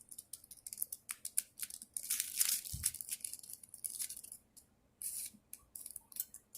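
Hands mixing two green pieces of a soft fidget material together: a rapid, irregular run of small crackles and clicks, with a dull thump about three seconds in and a short pause near the end.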